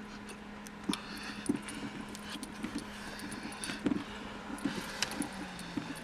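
2012 Nissan Versa's manual shifter knob being twisted back and forth and tugged, giving irregular small clicks and scraping knocks as the plastic piece inside is chewed up, over a faint steady hum.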